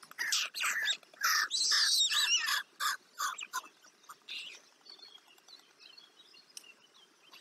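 Birds chirping and calling, busy and fairly loud for the first three seconds or so, then fainter, scattered chirps.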